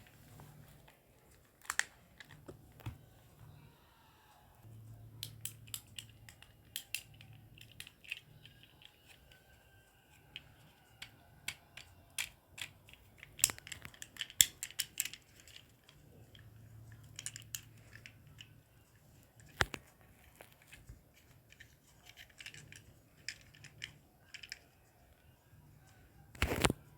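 Small plastic fidget toys being handled and worked: scattered clicks, taps and snaps at irregular intervals, with a louder cluster of clicks near the end.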